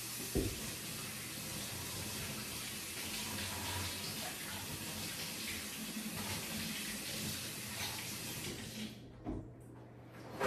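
Kitchen faucet running steadily, then turned off about nine seconds in, with a single knock near the start.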